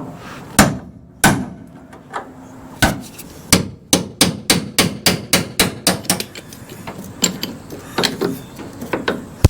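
Hammer striking the bent steel flange of a 1966 Ford Ranchero's front frame to straighten it: a series of sharp metal blows, coming in a fast run of about four a second near the middle.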